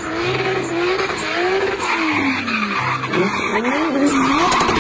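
A drift car sliding sideways with its tyres skidding and squealing, while its engine revs up and down repeatedly.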